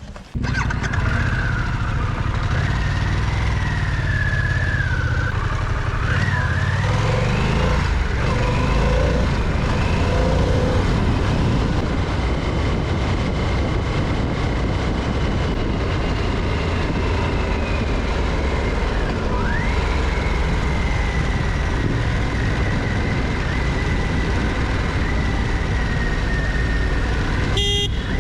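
Harley-Davidson Pan America's V-twin engine under way on the road, mixed with heavy wind rush. The engine pitch rises and falls with the throttle and gear changes.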